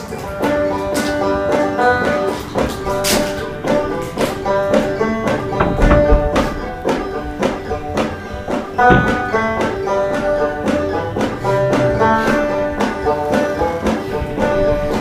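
Banjo being picked, a steady run of plucked notes.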